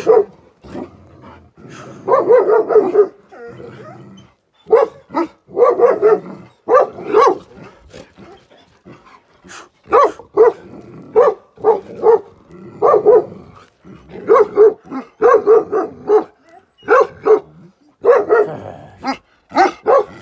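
Large black-and-tan Gaddi dogs barking in repeated runs of short, loud barks with brief pauses between runs.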